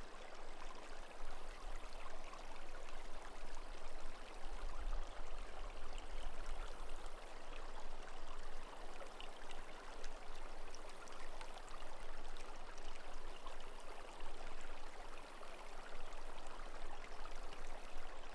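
Shallow, rocky creek flowing steadily, a constant rush of water with no speech or music over it.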